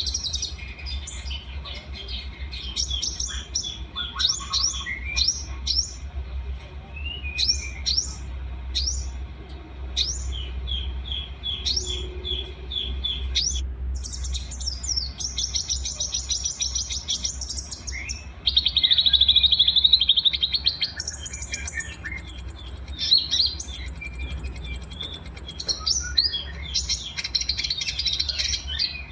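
Several small songbirds singing in a combined masteran song recording: quick sharp chirps and whistled trills that change abruptly from one song to the next, with a loud buzzy rattling trill about two-thirds of the way through. A steady low hum runs underneath.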